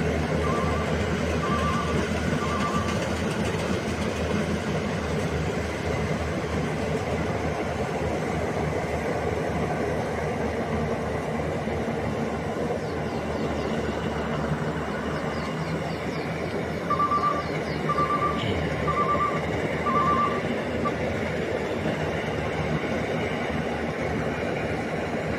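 Rice combine harvester running steadily. Its warning beeper sounds four times in a row right at the start, and another run of four beeps comes about seventeen seconds in.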